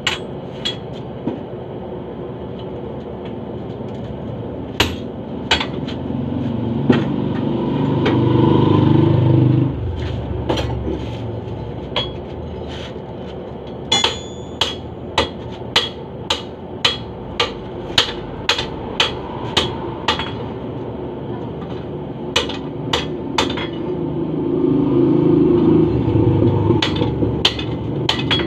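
Hammer blows on a red-hot steel blade on an anvil during hand forging: scattered strikes at first, then a steady run of about two blows a second from about halfway. A low drone swells under the strikes and cuts off suddenly about a third of the way in, and swells again near the end.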